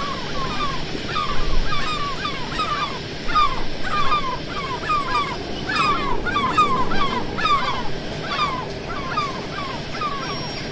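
A flock of crows calling over and over, many short downward-sliding caws overlapping, over a steady low background hum.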